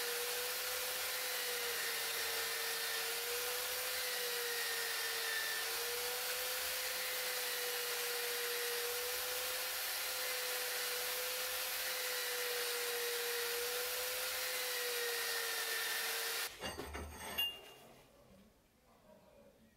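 Clamped power tool spinning an abrasive wheel with a steady motor whine, as a steel knife blank is ground against it with a continuous hissing grind. It stops about three seconds before the end, followed by a single knock.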